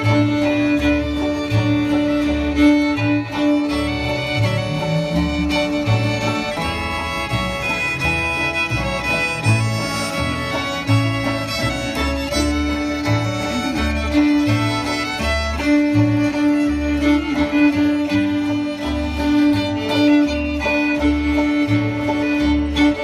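Acoustic bluegrass-style string band playing, with fiddles carrying the tune over regular plucked upright bass notes and strummed acoustic guitar.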